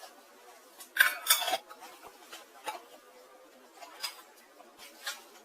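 Cookware being handled: a quick cluster of knocks and clinks about a second in, the loudest, followed by three lighter single knocks about a second apart.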